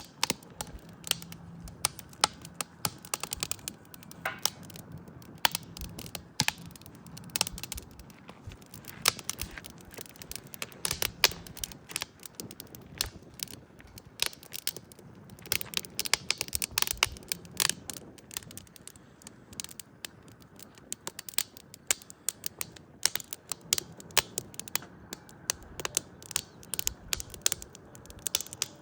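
Irregular clicking and tapping, many short sharp clicks at an uneven pace, over a faint low background.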